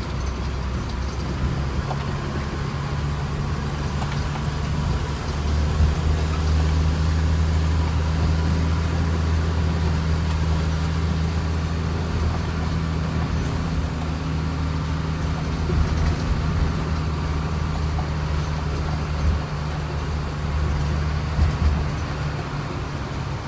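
Mercedes-Benz 1620 truck's diesel engine running while driving on a dirt road, heard from inside the cab. It is a steady low drone that grows louder about five seconds in, with a few knocks from the truck going over bumps.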